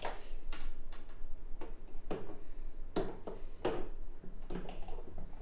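Plastic clicks and light knocks as an air purifier's filter frames, the white mesh pre-filter among them, are handled and fitted into the unit, about seven irregular knocks in a few seconds.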